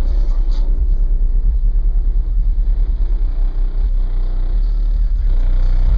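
Loud, very deep bass from a competition car audio system's subwoofers, pulsing rapidly.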